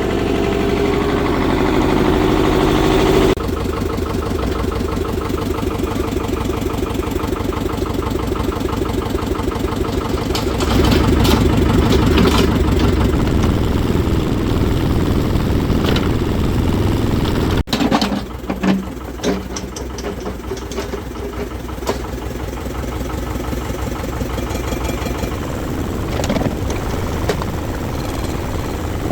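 Engine of construction plant, a site dumper or mini digger, running steadily with a regular rhythmic beat. The sound changes abruptly about three seconds in and again about two-thirds of the way through, with scattered knocks in the later part.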